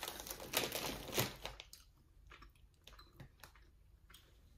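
Close-miked chewing of gummy candy: moist, sticky mouth sounds for about the first second and a half, then a few faint mouth clicks.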